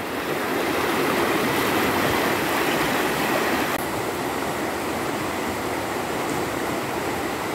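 Fast-flowing river water rushing steadily over shallows. The noise shifts slightly about halfway through, where one stretch of river gives way to another.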